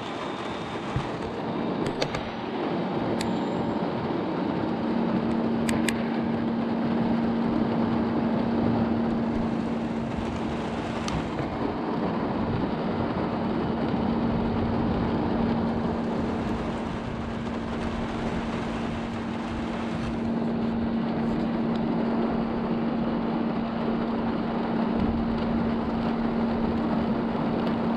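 Steady rain and engine noise heard from inside a vehicle, with a steady engine drone coming in about five seconds in and holding.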